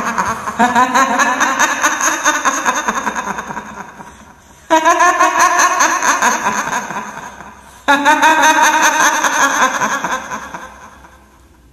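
Ghostly woman's cackling laugh in the style of a kuntilanak. It comes three times, each starting suddenly with a wavering pitch and dying away over about three seconds.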